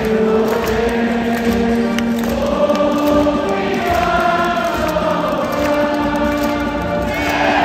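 A large stadium crowd of baseball fans singing a cheer song in unison, with long held notes.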